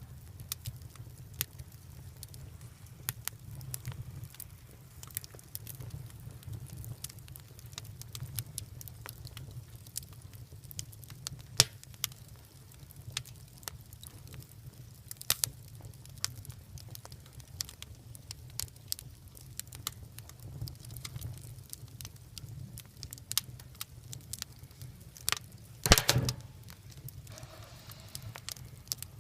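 Wood fire crackling, with irregular sharp pops over a low steady rumble. One much louder pop comes near the end.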